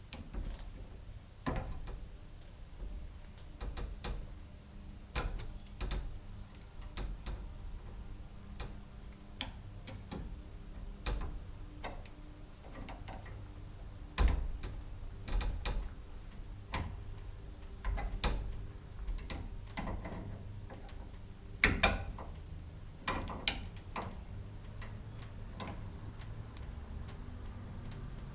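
Irregular metallic clicks and knocks of hand tools and hardware as a bar is fitted and locked against a wound garage door torsion spring, with a couple of sharper knocks.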